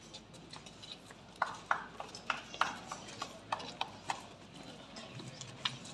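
Sparse hand clapping from a few people: separate sharp claps, roughly three a second, starting about a second and a half in and thinning out near the end.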